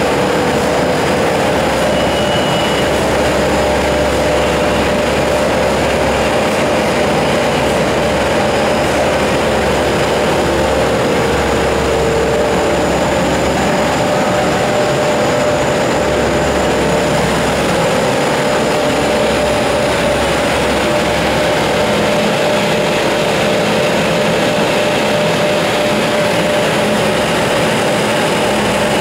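Two-colour flexographic printing machine running steadily, its drive motors and rollers giving a continuous mechanical hum with a constant whine and a deeper drone that comes and goes.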